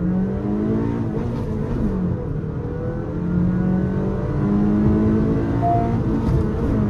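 Honda Elevate's 1.5-litre naturally aspirated four-cylinder i-VTEC petrol engine under full throttle, heard from inside the cabin during a standing-start acceleration run. The engine note climbs, dips briefly about two seconds in, climbs again, and dips once more near the end.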